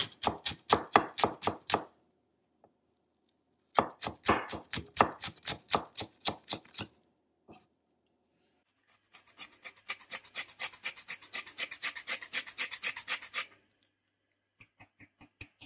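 Kitchen knife mincing shallots on a wooden cutting board: runs of sharp chopping strokes at about four to five a second, separated by short pauses. The last run, from about 9 to 13 seconds in, is faster and raspier. A few light clicks follow near the end.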